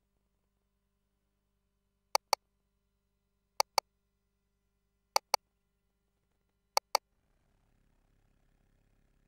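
Four pairs of sharp clicks, two quick clicks in each pair, coming about every second and a half with dead silence between them. A faint low hum sets in near the end.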